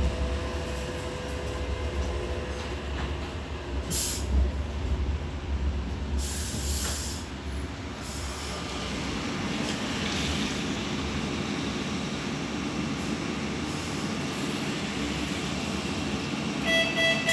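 Interior running noise of a Siemens-Duewag Supertram tram: a steady low rumble from the running gear that eases off about halfway through as the tram slows, with two short hisses along the way. Steady electronic tones begin just at the end.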